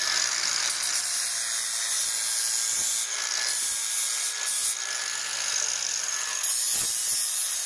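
Cordless angle grinder with a flap disc running and grinding the rough cut edge of a galvanized steel repair panel: a steady high whine over a dense grinding hiss that shifts as the disc works along the edge. It is taking off the furry burrs and some of the zinc coating back to bare metal before welding.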